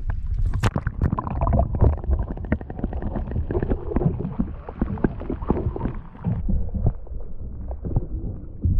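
A sharp splash about half a second in as the camera goes under the lake's surface, then muffled underwater gurgling, sloshing and knocking of water against the kayak hull. The sound turns duller from about six seconds on.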